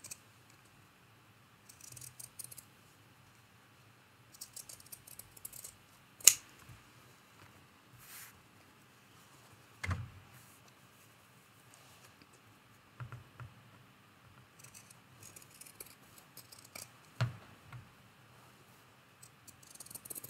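Pinking shears cutting through fabric in short runs of crunching snips. A few sharp knocks fall between them, the loudest about six seconds in.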